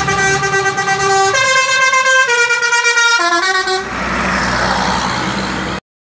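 Tour bus's telolet horn playing a tune of long held notes that step up and then back down in pitch, stopping just under four seconds in. The rushing noise of the bus driving past follows.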